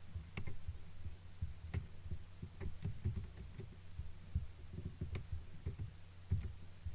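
Irregular clicks and light taps from a computer mouse and keyboard being worked, over a steady low hum.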